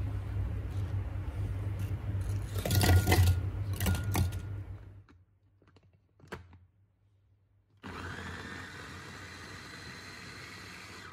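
Apple pieces tipped into the plastic bowl of a small electric food chopper with a few loud clunks, then a click as the motor head is set on. About eight seconds in, the chopper's motor starts, its pitch rising briefly, and runs steadily as it chops the apple.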